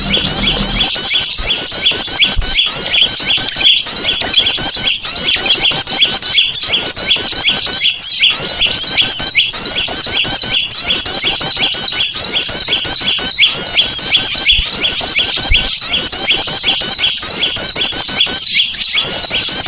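A dense, loud chorus of many small birds chirping and twittering in rapid, overlapping high notes, without a break: a recorded bird lure (pikat) for drawing small birds. A low hum underneath stops about a second in.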